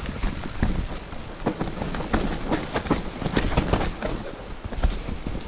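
Mountain bike rattling down a rough, wet trail: irregular knocks and clatter from the tyres and suspension hitting roots and rocks, with chain slap, over low wind rumble on the camera microphone.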